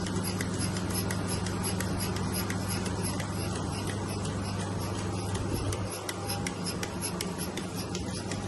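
Milking machine running: a steady low hum with rapid, regular ticking of the pulsators.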